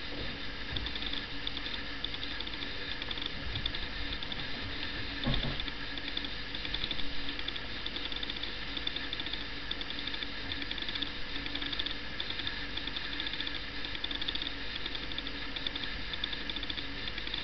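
Dog's claws scratching and pawing at a blanket in a cardboard box: a fast, steady rattling scratch, with two soft thumps about five and seven seconds in.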